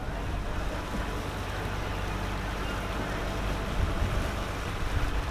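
Fishing boat under way: its engine running steadily beneath the rushing, churning water of the wake, with wind gusting on the microphone near the end.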